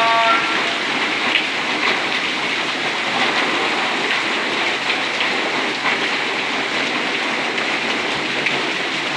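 Heavy downpour: steady rain hiss with scattered sharp drop impacts. A held tone from the moments before fades out in the first half second.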